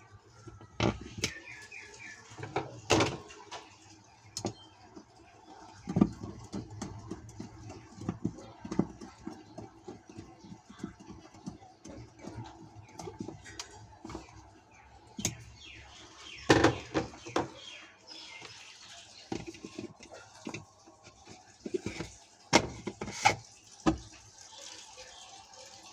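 Irregular clicks and knocks of plastic washing-machine parts being handled and fitted back in place, with a few louder clatters around the middle and near the end.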